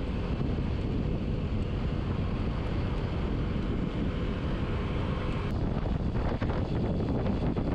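Wind buffeting the microphone: a steady low rumble with hiss above it, which thins out about five and a half seconds in while the rumble continues.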